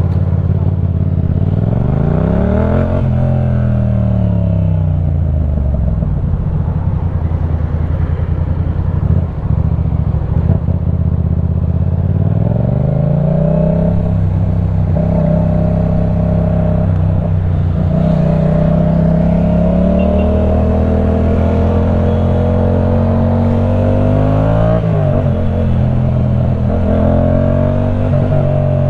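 Yamaha MT-07's parallel-twin engine through a full LeoVince One Evo exhaust, under way. The revs rise and fall back twice, then climb slowly and steadily, with a quick dip and pick-up about 25 seconds in, like a gear change.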